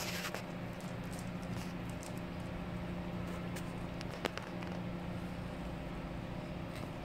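A cat eating wet food: scattered small clicks and smacks of chewing and licking, one sharper click a little past halfway, over a steady low hum.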